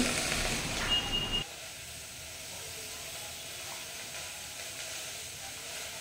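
Pot of lemongrass tea simmering on the stove: a steady hiss of steam and bubbling, louder for the first second and a half, with a brief high tone about a second in.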